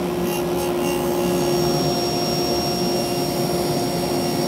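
Table saw running steadily with a steady hum while a board is pushed across the blade at an angle, the teeth taking a shallow sideways cut to form a cove. A thin high whine joins about a second in.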